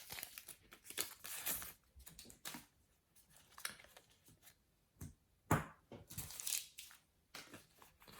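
Topps sticker packets and stickers handled by hand: a paper packet being torn open and stickers rustled through, in short scattered rustles and crinkles with a few light clicks.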